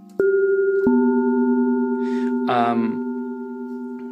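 Teenage Engineering OP-1 synthesizer playing a bell-like preset: two notes struck a little over half a second apart, each ringing on with several steady overtones and slowly fading.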